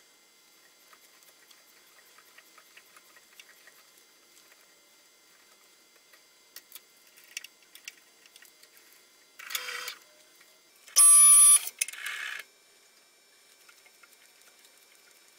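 Hand tap cutting threads in 1144 steel, turned by a tap wrench: faint clicks and scraping as it turns. About two-thirds of the way through there is a short scrape, then a loud, high-pitched squeal lasting under a second, then another short scrape.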